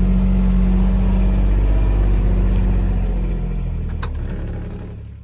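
A vehicle engine running at a steady low pitch, dying away over the last two seconds, with a single sharp click about four seconds in.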